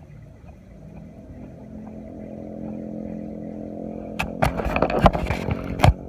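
A small engine running at a steady pitch and growing louder, as if drawing near. Near the end comes a short spell of loud knocks and rattles.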